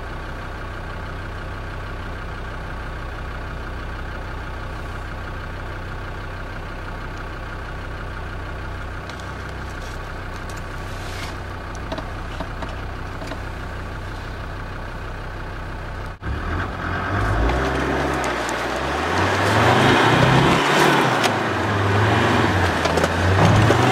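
Land Rover Defender 110 engine idling steadily. About 16 s in, after a brief drop-out, it revs up and down in rising and falling surges as the vehicle drives off through soft sand.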